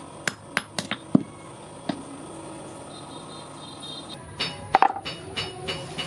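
Hammer blows on steel at the anvil, forging an S hook: a few separate strikes in the first two seconds, then from about four and a half seconds in a quick run of ringing blows, about four a second.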